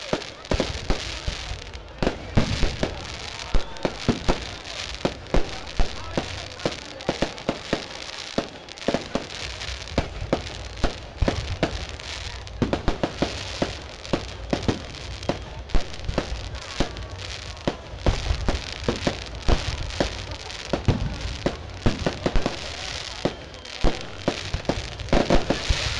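Fireworks display: aerial shells bursting in sharp, irregular bangs, roughly one every second or so, with smaller pops in between.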